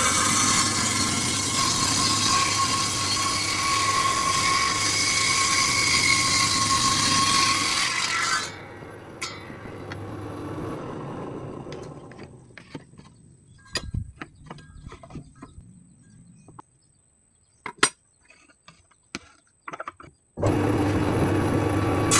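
Table saw running and cutting wood with a steady whine. About eight seconds in it drops away suddenly to a fading hum, followed by scattered sharp knocks and clicks. Near the end the loud saw noise starts again abruptly.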